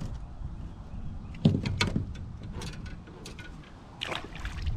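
A few knocks and light clicks as fishing gear is handled on the boat deck, the loudest a knock about one and a half seconds in, over a low rumble of wind on the microphone.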